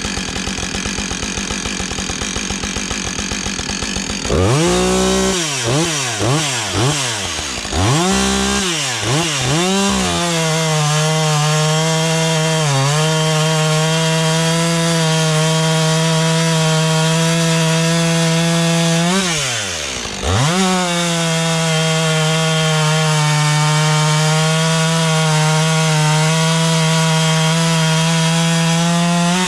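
Husqvarna 562 XPG two-stroke chainsaw idling, blipped up and down a few times, then held at full throttle through a cut in stove wood. It drops back to idle briefly about two-thirds of the way in, then goes back to full throttle for a second cut.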